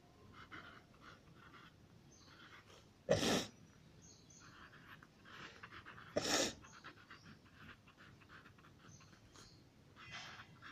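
Faint scratching of a pen writing on notebook paper, broken twice by a short, loud, sudden burst about three seconds apart.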